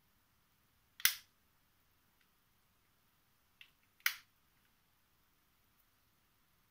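Two sharp taps about three seconds apart, with a fainter tick just before the second, as small folded paper origami pieces are set down on a wooden countertop.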